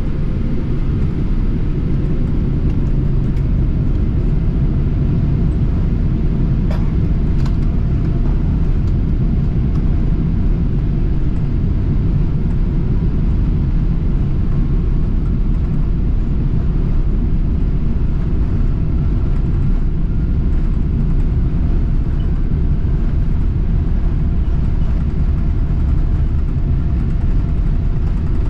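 Jet airliner noise: a loud, steady low rumble that does not change, with two faint clicks about seven seconds in.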